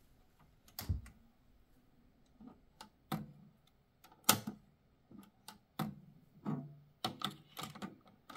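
Irregular clicks and clunks from an Akai CS-732D cassette deck being worked by hand: its power switch, the spring-loaded cassette door ejecting open, and a cassette being handled and loaded into the door.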